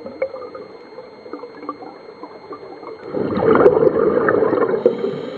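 Underwater sound picked up through a camera housing: faint crackling and clicks, then about three seconds in a scuba diver's exhaled bubbles gurgle loudly for about two seconds.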